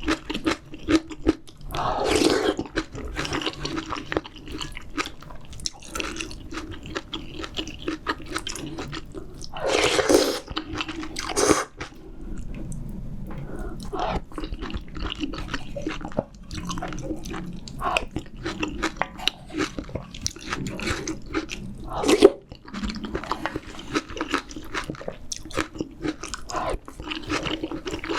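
Close-miked chewing, biting and wet mouth sounds of a person eating spicy seafood ramyeon, with some crunching. Several longer, louder noisy stretches come about two, ten and eleven seconds in.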